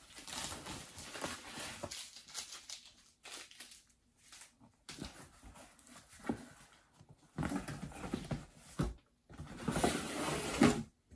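Cardboard shipping box handled by hand: its flaps are opened, then the box is lifted off the inner box, scraping and rustling in irregular bursts that grow louder in the second half.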